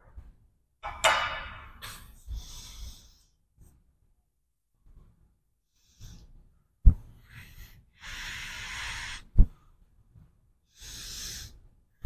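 A person breathing out hard several times while warming up, with a couple of sharp thuds.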